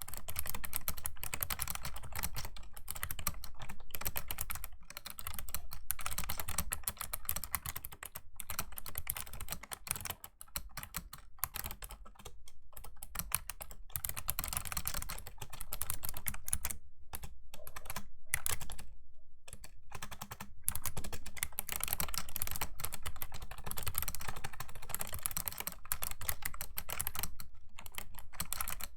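Fast typing on a Razer Ornata Chroma V2 keyboard, its mecha-membrane keys clicking in dense runs, with a couple of brief pauses past the middle.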